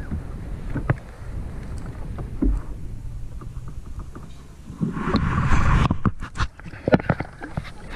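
Scattered knocks and clicks of hands and gear against a plastic sit-on-top fishing kayak's hull and deck, with a short rushing burst about five seconds in.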